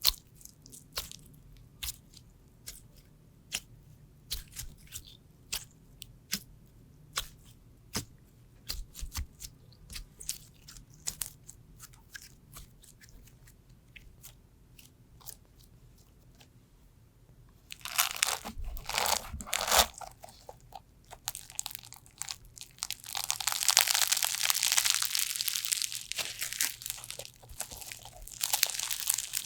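Slime being played with: sparse sticky clicks and pops at first, then louder crackling from a little past halfway, growing into a dense stretch of crackling crunches near the end.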